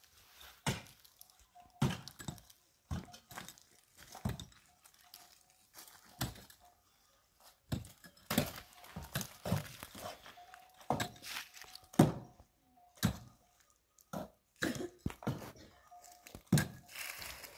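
A series of irregular knocks and thuds, about one a second, some in quick pairs.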